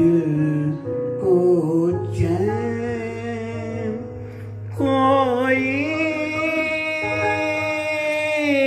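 A man singing a slow, melodic song into a handheld microphone, with keyboard accompaniment. He holds one long wavering note from about five seconds in.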